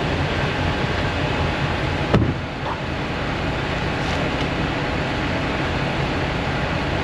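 Semi truck's diesel engine idling steadily, with one sharp thump about two seconds in.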